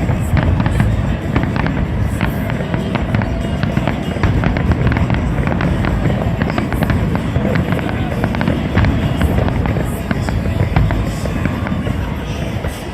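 Fireworks display going off: a dense run of sharp bangs and crackles over a continuous low booming rumble.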